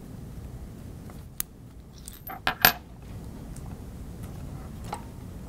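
Metal shell of a quarter-inch tip-sleeve plug being unscrewed and slid back, giving a few light metallic clicks and clinks: one about a second and a half in, a sharper quick pair around two and a half seconds, and a fainter one near five seconds.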